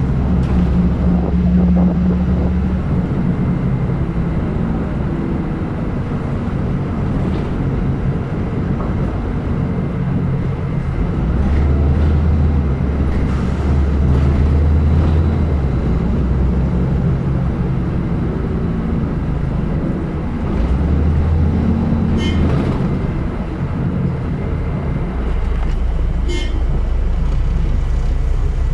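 City bus engine running and road noise heard from the rear of the bus, the low engine drone swelling and easing off in turns as the bus accelerates and slows. Two brief high-pitched sounds cut in about two-thirds of the way through and near the end.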